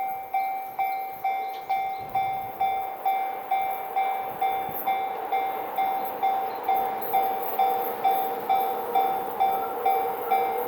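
Japanese railroad level crossing warning bell ringing steadily, about two strikes a second, each strike fading before the next. A lower tone swells beneath it near the end.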